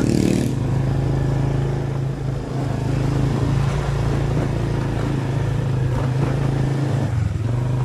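Motorbike engine running steadily while riding, its note dipping briefly about seven seconds in and then picking up again.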